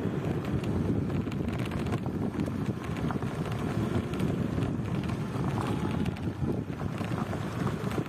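Wind buffeting the microphone: a steady, rumbling noise that rises and falls unevenly, with no calls from the cattle.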